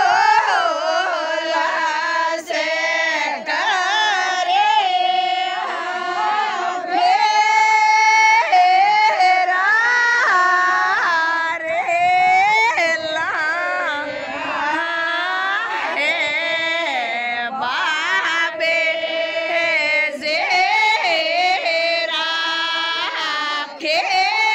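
Group of women singing a Rajasthani mayra folk song together, one continuous melody line with no clear drum beat.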